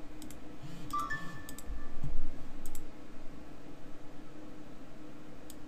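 A computer mouse clicking several times, mostly in quick pairs, over a steady low hum. A short electronic two-note tone sounds about a second in, and a dull thump comes about two seconds in.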